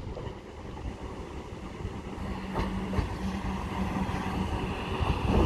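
South Western Railway train from London Waterloo pulling into the platform: a low rumble of wheels on rail with a steady hum, growing louder, and a couple of sharp clacks about two and a half and three seconds in.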